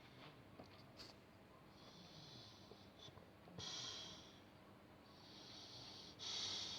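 A sleeping pet snoring with its tongue out: faint, hissy breaths in a repeating pair, a softer breath followed by a louder one. The cycle comes twice, about every three seconds.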